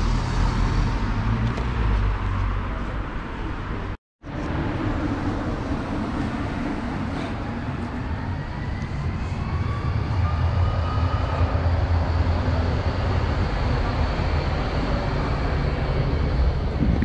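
Night city-street ambience: steady traffic noise with a heavy low rumble, and a faint rising whine from a passing vehicle in the middle. The sound cuts out completely for a moment about four seconds in.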